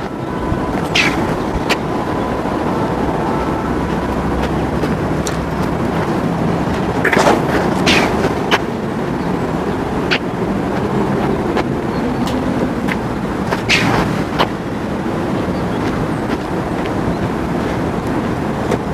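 Steady wind noise buffeting the microphone, with a few brief crackles and knocks.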